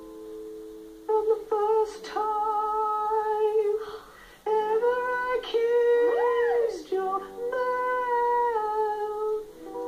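A young man singing with full-voiced, held notes, breaking into a wail that rises and falls about six seconds in.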